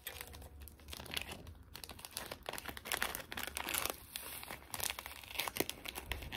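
Plastic bag of synthetic dubbing crinkling in the hands as a pinch of dubbing is pulled out, a run of small irregular crackles.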